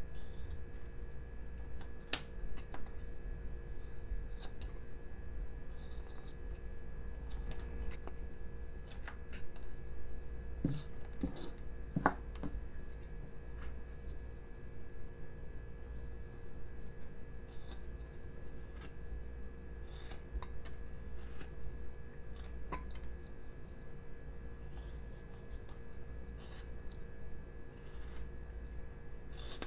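Carving knife slicing into a basswood block: a run of short, crisp cuts and scrapes as wood chips are pared away, the sharpest snaps about two and twelve seconds in. A steady hum runs underneath.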